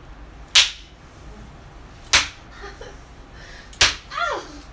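Three sharp slaps of a belt striking a person's backside, about a second and a half apart. The last two are followed by short cries, the one after the third falling in pitch.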